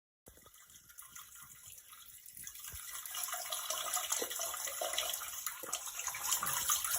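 Peeing sound effect: a stream of liquid splashing. It starts faint and grows louder over the first few seconds, then runs on steadily.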